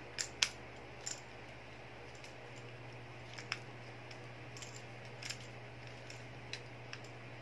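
Sharp plastic clicks and taps of a smartphone holder being fitted and screwed onto a flexible-leg tripod: a quick pair of loud clicks at the start, then single clicks every second or two. A steady low hum runs underneath.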